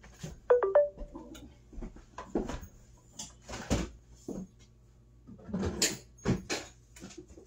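A brief pitched sound of a few stepped tones, then a run of clunks and clatter as a refrigerator door is swung open and things inside are handled.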